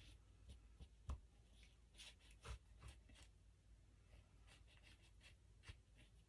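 Near silence with faint handling sounds: light taps and rubbing as a squeeze bottle of fabric glue is run along a folded fabric edge on a cutting mat. A couple of slightly louder knocks come about a second in and again about two and a half seconds in.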